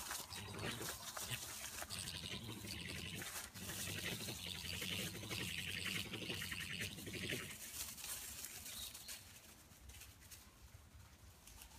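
Two European badgers making a rough, rapidly pulsing rumble, like an old V8 engine running on only half its cylinders, with a higher squealing over it from about two to seven seconds in; it dies away after about eight seconds. It comes from the animals either fighting or mating; the uploader cannot tell which.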